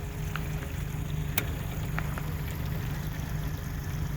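Boat engine idling with a steady low hum, with a few brief faint clicks over it.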